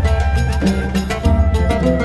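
Background music with a steady drum beat, held melody notes and a strong pulsing bass.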